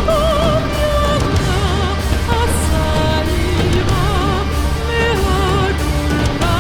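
Epic-style music: long held notes wavering in vibrato over a steady low bass.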